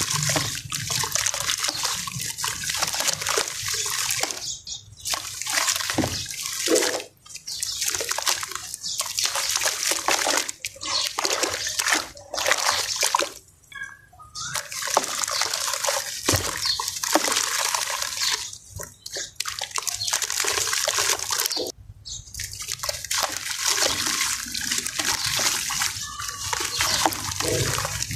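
Dry sand and crumbled sand-cement pouring from hands into a tub of water, a grainy hiss that runs in stretches of a few seconds with short breaks between handfuls.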